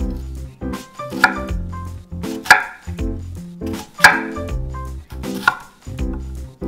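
A hollow-edge chef's knife cutting through half an onion and striking a wooden cutting board: four sharp chops about a second and a half apart, over background music.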